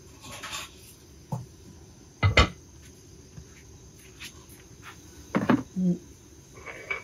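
Feeding bowls clinking and knocking as cat food is set out: a short rustle, then a couple of sharp knocks, the loudest about two seconds in. Insects chirp steadily in the background.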